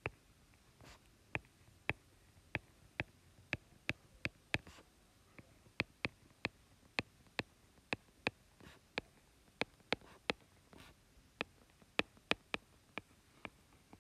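Stylus clicking and tapping on a tablet surface while words are handwritten: short sharp clicks at an uneven pace, about two a second.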